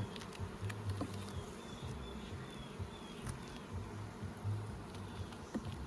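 Honeybees buzzing around an open hive during a frame inspection, a low hum that swells and fades as bees fly near.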